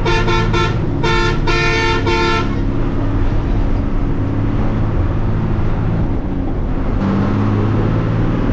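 Bus horn blown in two quick sets of three short toots in the first two and a half seconds, over the bus engine running steadily.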